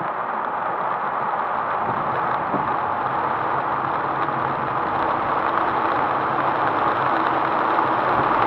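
Heavy rain drumming steadily on a moving car's roof and windshield, heard from inside the car, over the low hum of the engine and tyres on the wet road, growing a little louder toward the end.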